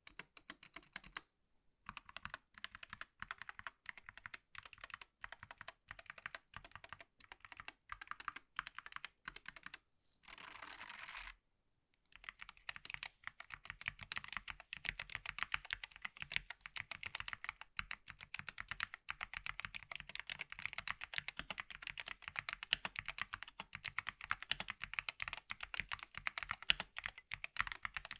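Typing on a SteelSeries Apex Pro Mini wireless gaming keyboard, its keys clicking in short bursts at first. A brief rustling noise comes about ten seconds in, then fast, continuous typing.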